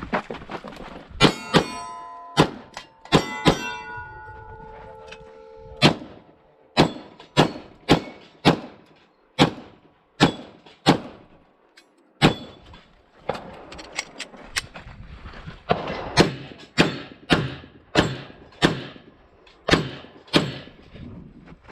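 Rapid pistol fire from a Glock 22 in .40 S&W at a steel match, about two dozen shots in quick strings with short pauses. Steel plates ring after hits, most clearly in the first few seconds.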